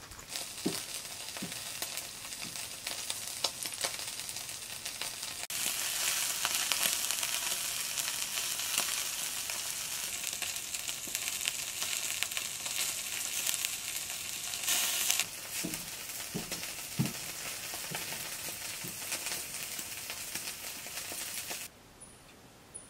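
Meat sizzling on a charcoal grill: a steady hiss with small crackles. It is louder for a stretch in the middle and cuts off abruptly near the end.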